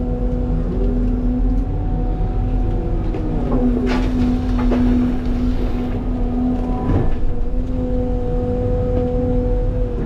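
CAT 323 excavator's diesel engine and hydraulics running under load with a steady hum and a wavering whine as the controls work. There are sharp knocks from the bucket about four and seven seconds in, as it digs into limestone rock.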